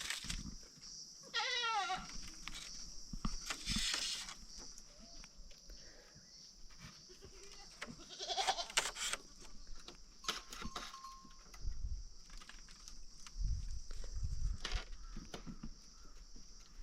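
Goat bleating: one wavering bleat about a second and a half in, and another call around the middle.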